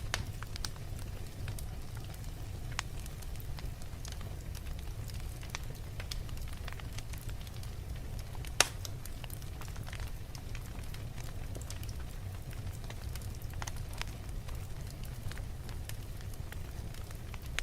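Wood fire in a fireplace crackling, with scattered sharp pops over a steady low rumble; one pop about halfway through is much louder than the rest.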